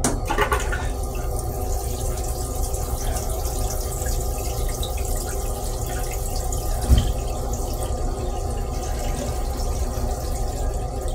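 Metro-North M3 railcar toilet flushing: blue rinse water rushes steadily into the stainless-steel bowl from a sudden start, over a low steady rumble. A single thump about seven seconds in.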